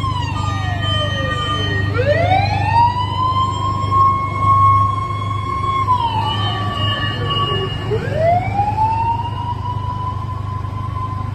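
Japanese fire engine's electronic siren in its wail pattern: a falling tone, then a slow rise to a long held high note and a slide back down, about twice, over a low steady rumble.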